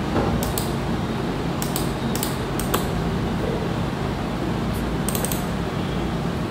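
Steady background hiss and hum, with a few scattered light clicks: a pair about half a second in, several around two seconds in, and another pair just after five seconds.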